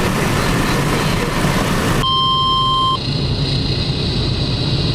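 Steady vehicle road noise cuts off about two seconds in, replaced by a weather radio's alert tone: a single steady beep about a second long. The beep is followed by the radio's low hum and hiss.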